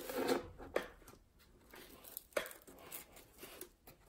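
Hands fitting a small LiPo battery and its wires into the battery slot of an EPP foam fuselage, making irregular rustling, crinkling and scraping with a few short, sharper scrapes.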